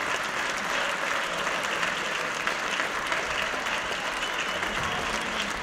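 Steady applause from a large room of people clapping.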